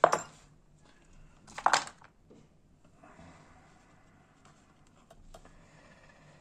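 Small-parts handling on a paper-covered workbench: two short, sharp rustles about a second and a half apart, then faint handling noise with a couple of light clicks near the end.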